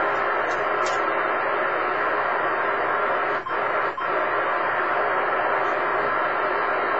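Amateur radio transceiver's speaker hissing with steady receiver static on a channel with no signal yet, briefly cut by two short dropouts about three and a half and four seconds in.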